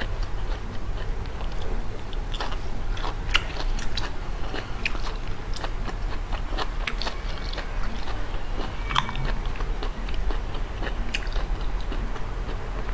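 Close-miked eating of seafood: biting and chewing, with many small, sharp, irregular clicks, over a steady low hum.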